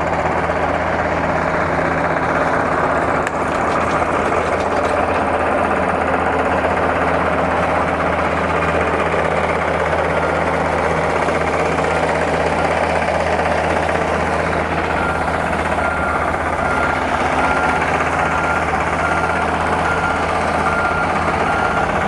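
Diesel engine of a John Deere 50G compact excavator running steadily close by. About two thirds of the way in, a warning beeper starts sounding about once a second.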